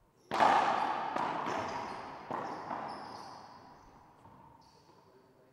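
Racquetball rally in an enclosed court. A loud racquet strike on the serve comes about a third of a second in, followed by several more racquet hits and ball impacts off the walls, each echoing and fading. Short high sneaker squeaks on the hardwood floor are heard as the rally dies away.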